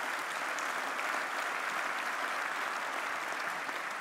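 A crowd applauding, a steady even clapping that eases off slightly near the end.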